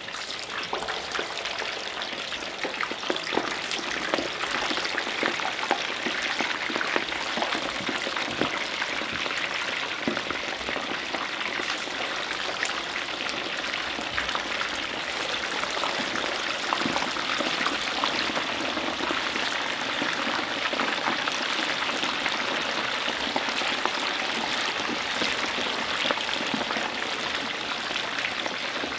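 Chicken wings deep-frying in hot oil in cast-iron Dutch ovens: a steady, dense crackle and sizzle full of small pops, growing a little louder over the first few seconds.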